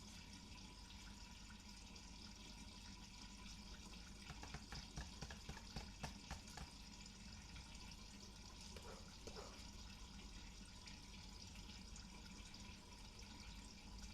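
Near silence: steady room tone, with a few faint clicks near the middle.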